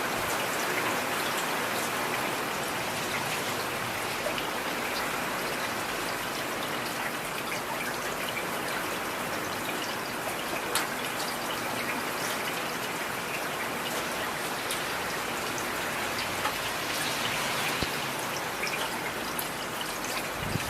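Heavy rain falling steadily, an even hiss dotted with the ticks of single drops striking.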